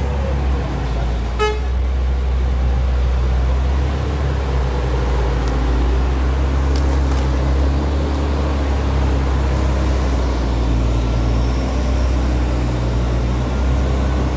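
Caterpillar wheel loader's diesel engine running steadily close by, a deep low rumble. A brief horn toot sounds about a second and a half in.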